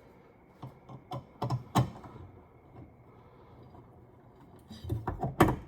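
Scattered small clicks and taps of small screws and metal mounting hardware being handled, with a cluster of louder knocks near the end.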